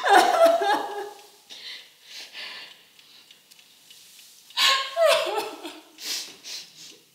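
A woman sobbing in grief: two bouts of wailing cries, one at the start and one about four and a half seconds in, with gasping breaths between.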